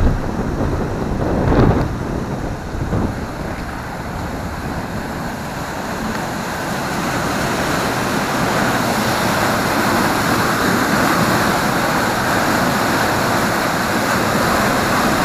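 Floodwater rushing through a fully open sluice gate and churning down a concrete outfall channel: a steady rushing that grows louder and brighter from about six seconds in. Wind buffets the microphone briefly about two seconds in.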